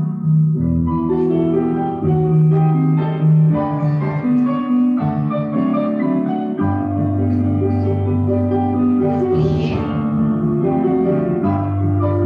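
Instrumental ballet-class accompaniment music: held low notes under a moving melody, steady in level throughout.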